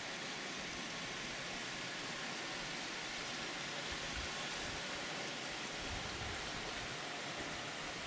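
Steady, even hiss with no clear source, with a few brief low rumbles around the middle.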